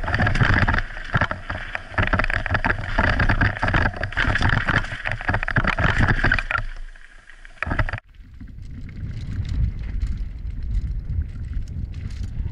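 Mountain bike ride heard through a helmet-mounted action camera's microphone: wind buffeting and rapid rattling knocks from the bike on rough trail. About eight seconds in it cuts abruptly to another camera's recording of the ride, duller and mostly low rumble.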